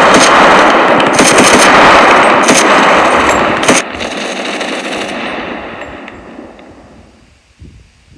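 Sustained machine-gun fire, loud and dense, cutting off abruptly about four seconds in, followed by an echo that fades away over the next three seconds.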